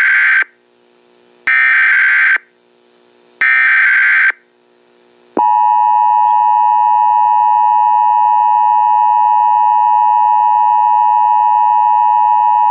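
Emergency Alert System broadcast signal: three short, identical bursts of SAME header data about two seconds apart. About five seconds in, the steady two-tone EAS attention signal (853 and 960 Hz together) begins.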